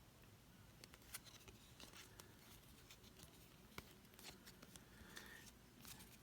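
Near silence with faint rustles and a few soft clicks of trading cards being handled and flipped through.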